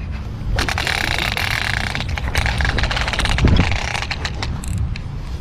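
A baitcasting reel whirring as its spool pays out line on a cast, starting about half a second in and thinning out over several seconds, with a dull thump about three and a half seconds in. Low wind rumble on the microphone runs underneath.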